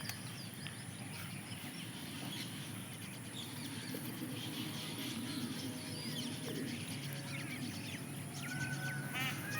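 Outdoor ambience of scattered faint bird chirps over a steady low rumble; near the end a bird starts a run of quick, repeated harsh calls.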